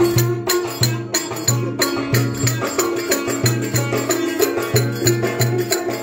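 Live Turkish village folk music: a davul bass drum beating a quick, steady rhythm under a melody line.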